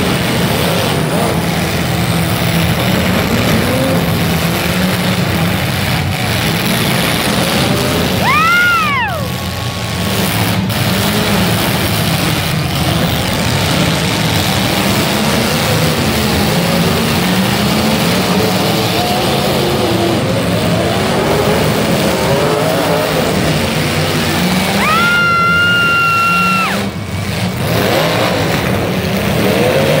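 Demolition derby cars' engines running and revving. A horn sounds twice: a short blast that rises and falls in pitch about eight seconds in, and a steadier blast of about two seconds near twenty-five seconds.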